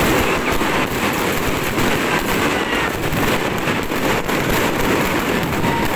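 Aerial fireworks going off close overhead: a dense, continuous crackling with irregular sharp bangs throughout.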